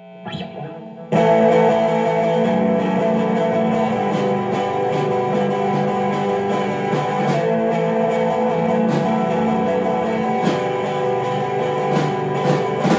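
Garage rock band playing: electric guitar through an amp with a drum kit. A quieter start gives way to the full band about a second in, with steady drum and cymbal hits under the guitar.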